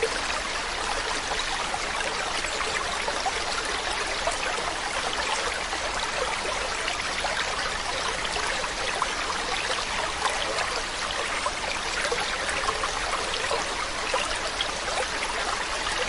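Mountain stream flowing: a steady rush of water with many small splashes and trickles.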